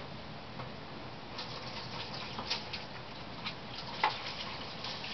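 A small dog sneezing: one short, sharp burst about four seconds in, after two fainter ones, over faint light clicks.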